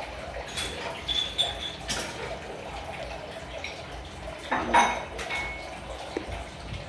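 Spoons, bowls and a ladle clinking and knocking at the table, a few short ringing clinks among light knocks, with a plastic ladle stirring the broth in the soup pot. The clinks come in the first two seconds and again just before the fifth second.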